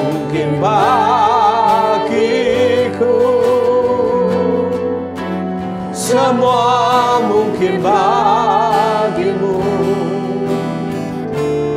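A man and a woman singing an Indonesian worship song together, in sung phrases with vibrato, over a sustained instrumental accompaniment.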